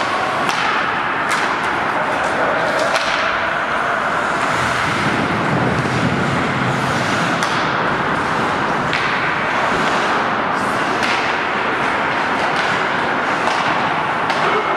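Ice hockey play in an indoor rink: a steady wash of skate and arena noise with sharp clacks of sticks and puck every second or two.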